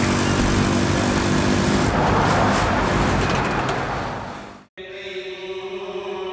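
Road traffic noise heard from a moving vehicle as trucks and motorbikes pass; it fades out, and after a brief gap Buddhist chanting begins, a steady, held chant.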